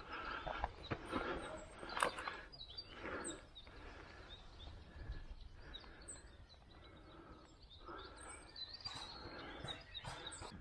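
Faint birds chirping over an uneven outdoor rustle, with a few sharp clicks in the first two seconds.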